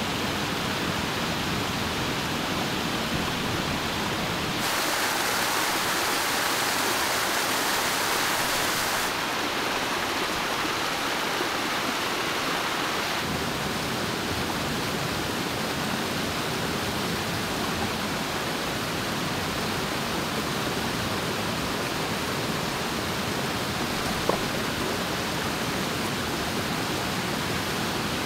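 River water rushing steadily, a continuous hiss of flowing water. It gets louder and brighter from about five to nine seconds in, then settles back. One short tick comes near the end.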